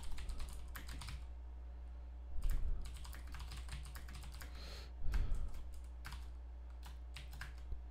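Keystrokes on a computer keyboard as a short command line and commit message are typed, a run of light clicks. Two louder thumps come about two and a half and five seconds in, over a low steady electrical hum.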